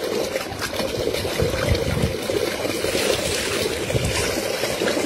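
Cow urine being poured over a person's head and body, trickling and splashing as he bathes in it.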